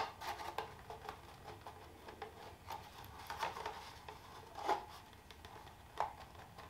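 Faint handling noise as a gauge is pressed into a plastic A-pillar gauge pod: scattered clicks, small knocks and scrapes of plastic, with sharper clicks at the start, near the middle and about a second before the end. It is a very tight fit.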